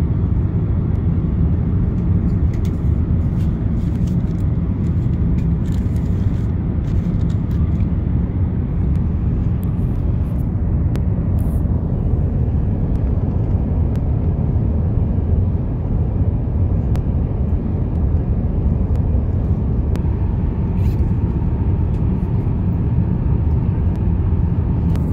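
Steady low rumble of cabin noise aboard an Airbus A350-900 airliner, with a few faint ticks over it.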